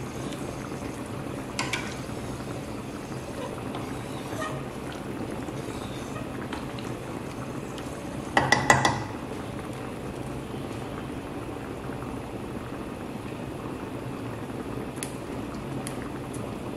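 A stainless steel pot of creamy liquid simmering on an electric stovetop, a steady bubbling hiss. A short, loud burst of rustling and clatter comes about halfway through as something is added to the pot.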